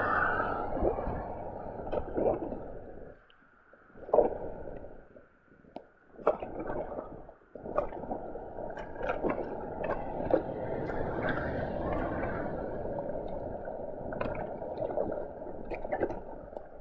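Flood water gurgling and rushing down a roadside storm drain as the puddle drains away, with scattered clicks and knocks over it. The sound is muffled and drops out briefly a few times, from water in the microphone.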